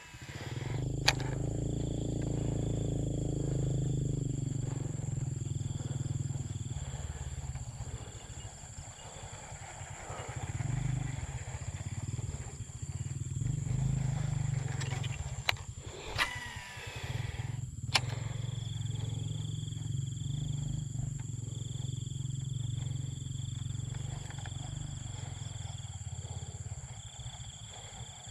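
Outdoor ambience with a low rumble that swells and fades and a steady, pulsing insect buzz, broken by a few sharp clicks from a baitcasting reel: one about a second in and a cluster between about 15 and 18 seconds.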